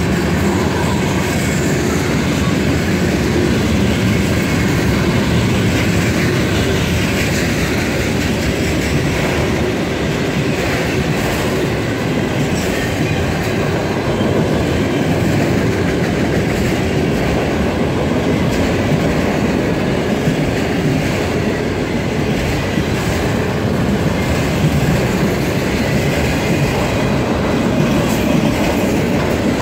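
Freight train cars, covered hoppers and then autorack cars, rolling steadily past, their wheels clattering over the rail joints.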